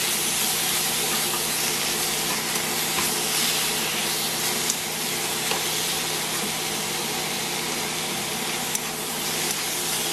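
Pork, onion and zucchini sizzling in a hot pan as they are stir-fried, a steady frying hiss. A couple of light clicks about halfway through and near the end come from the chopsticks touching the pan.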